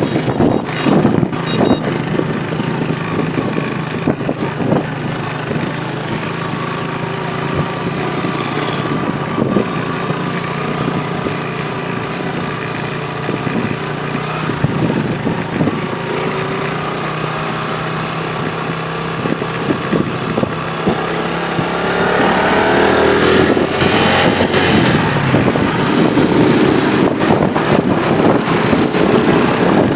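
Motorcycle engine running steadily at low speed, with scattered knocks and jolts from a rough dirt road. About twenty-two seconds in the engine speeds up, rising in pitch and getting louder as the bike accelerates.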